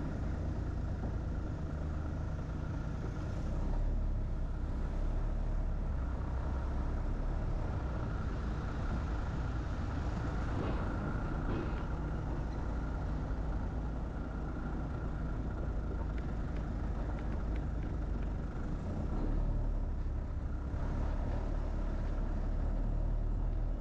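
Steady low rumble of a vehicle travelling along a road, with engine and tyre noise.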